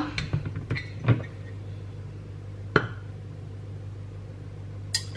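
A glass bottle of olive oil being uncapped and handled, with a few light clicks and a single knock, over a steady low hum.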